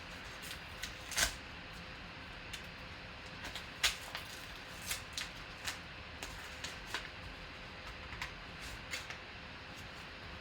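A trading-card pack being opened and handled: scattered crinkles, clicks and taps of plastic packaging and cards, loudest about a second in and again about four seconds in.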